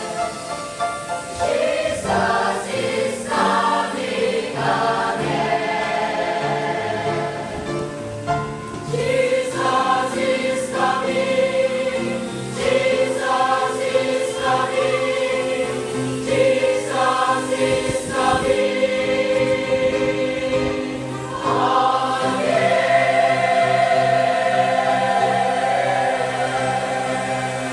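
Church choir singing a hymn in held, sustained notes that change pitch every second or so, with a long held note near the end.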